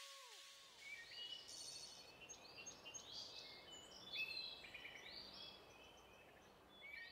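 Faint high chirping like small birds, a flurry of short calls over a low hiss. The echo of the preceding music dies away in the first half-second.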